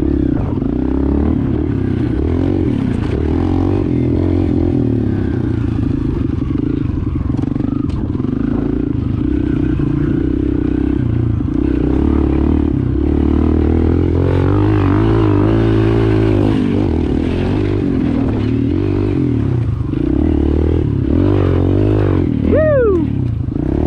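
Kawasaki KLX pit bike's small four-stroke single-cylinder engine running under way, its revs rising and falling as the rider works the throttle through the gears. A brief high falling squeal comes near the end.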